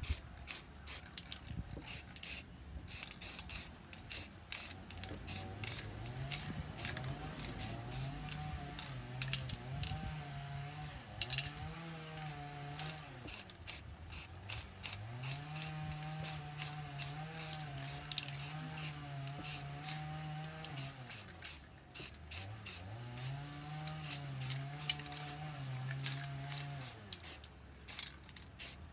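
Aerosol spray paint can hissing in many short, irregular bursts as paint is sprayed onto a stencilled board. Under the spraying, a low wavering tone comes and goes in long held stretches.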